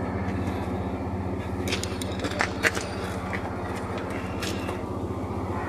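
A few light metallic clinks as a truck alternator is handled and worked against its mounting bracket, over a steady low machine hum.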